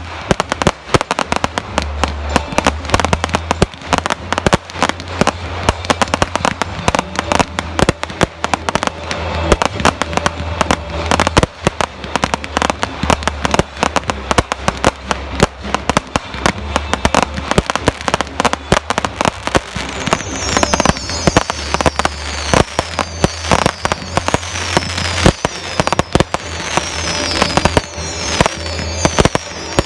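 Fireworks finale barrage: a dense, continuous stream of sharp bangs and crackling reports over a deep rumble. About two-thirds of the way through, repeated high whistles that fall in pitch join the barrage.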